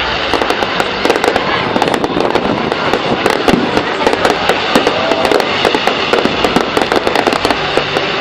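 Fireworks going off in quick succession, a continuous barrage of bangs and crackles with no pause.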